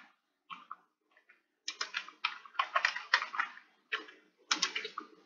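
Typing on a computer keyboard: irregular runs of key clicks, sparse at first, then a dense flurry in the middle and two short runs near the end.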